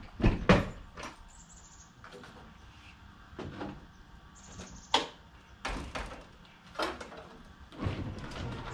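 Irregular knocks and clacks of things being handled, about eight over several seconds, the loudest pair right at the start.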